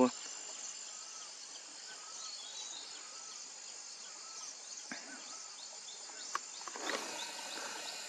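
Steady high-pitched insect drone from the forest, with faint short bird notes about once a second and a couple of soft clicks.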